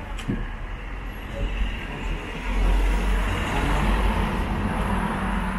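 A road vehicle driving close past, its engine and tyre noise swelling about two and a half seconds in and staying loud, with a low rumble underneath.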